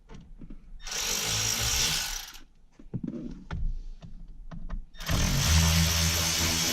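Power tool running in two bursts, a short one about a second in and a longer one in the second half, with a steady motor hum under the second.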